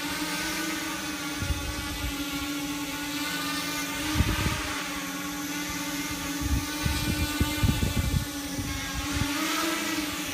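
Small multirotor drone hovering: its electric motors and propellers make a steady whine with a slightly wavering pitch. Irregular low rumbles come and go on top of it.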